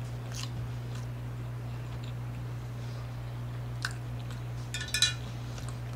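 A person chewing a mouthful of food with lips closed: faint wet mouth clicks, a slightly louder cluster about five seconds in, over a steady low electrical hum.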